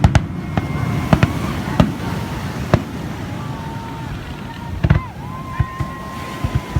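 Fireworks display: shells bursting with sharp bangs at irregular intervals over a low rumble, with thin held whistling tones between the bangs.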